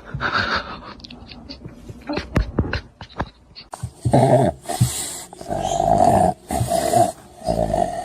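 A dog vocalizing. There are scattered clicks and knocks at first, then a run of loud, repeated calls from about four seconds in.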